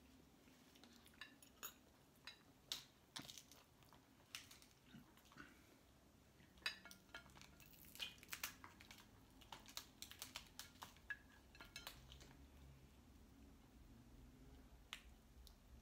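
Cooked snow crab legs being snapped and cracked open by hand: faint, scattered sharp cracks and clicks of shell, coming thickest in the middle stretch.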